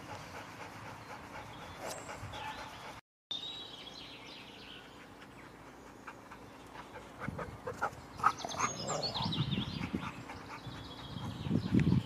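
A husky whining and yipping in short high calls in the second half, excited by squirrels it is watching beyond a fence, with faint birdsong behind.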